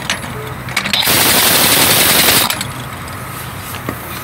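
Large air impact wrench hammering a lug nut on a heavy truck wheel. There is one loud rapid run of about a second and a half, starting about a second in.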